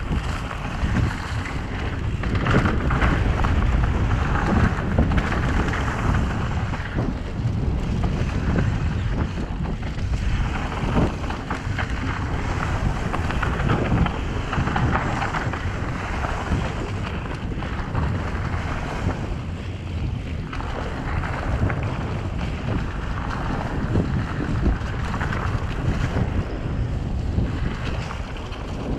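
Wind buffeting the microphone of a mountain bike's camera during a fast downhill singletrack run, over the rumble of knobby tyres rolling on dry dirt, with scattered knocks and rattles from the bike over bumps. The rush swells and eases as speed changes.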